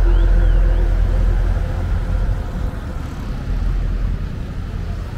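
A motor vehicle's engine rumbling as it passes close by and moves off, loudest at the start and fading away; its engine hum drops out about a second and a half in, leaving the general street rumble.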